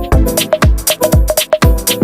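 Electronic dance music with a steady kick-drum beat, about two beats a second, and crisp hi-hats.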